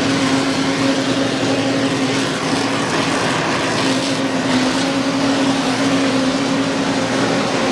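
Steady mechanical running noise with a constant low hum, unchanging throughout.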